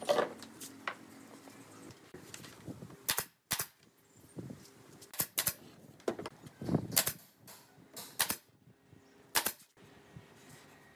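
Sharp, irregular wooden knocks and clacks, about a dozen, as a pine frame is shifted, lifted and set down on a wooden workbench.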